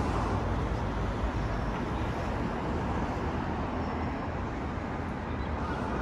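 Steady urban road traffic noise, cars passing on the street, without sharp events.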